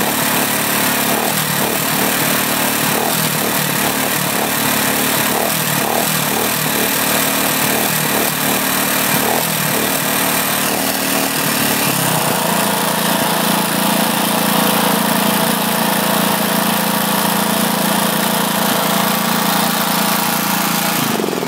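Lifan 5 HP single-cylinder, air-cooled four-stroke engine running at speed. Its note wavers for the first half, then settles to a steady pitch a little past halfway.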